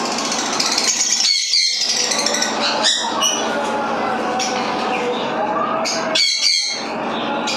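Sun conures giving a few short, harsh squawks over a steady background hiss.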